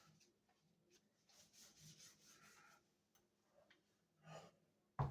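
Faint rubbing of a paper towel wiped over a rifle and its scope, with a small knock from handling the gun near the end.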